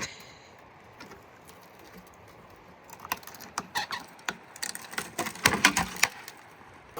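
Irregular cracks and clicks of twigs and branches snapping and rustling as brush is handled during trail clearing, starting about three seconds in and loudest near the end; no saw running.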